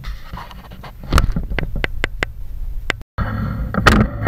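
A quick series of sharp knocks and clicks, about half a dozen in a second and a half. The sound drops out completely for a moment about three seconds in, then a steady low hum returns with another loud knock.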